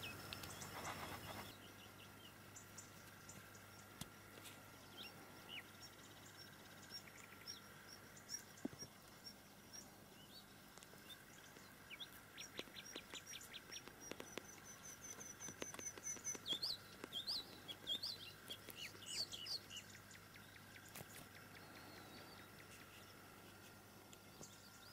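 Faint birds chirping and trilling, the calls busiest and loudest about two-thirds of the way in. A short rustle of handling comes at the very start.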